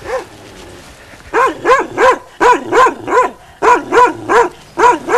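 Dog barking in a quick, regular run of short barks, each rising and falling in pitch, about three a second, starting a little over a second in.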